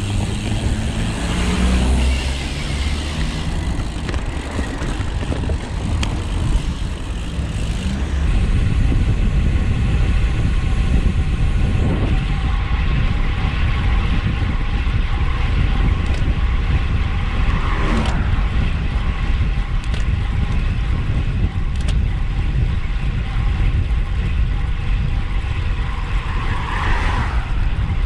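Motor vehicles passing on a main road, heard over steady wind rumble on the microphone of a moving bicycle. Three of them swell up and fade away, the last near the end.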